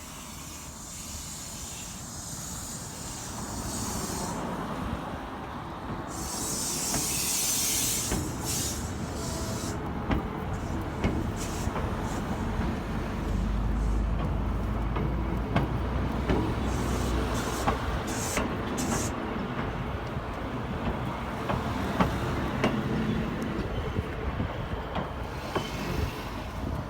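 A train of new Sotetsu 12000-series cars, hauled by a DE10 diesel locomotive, moving slowly close by, with a steady rumble that grows louder and many sharp wheel clicks and knocks. There is a burst of hissing about a quarter of the way in.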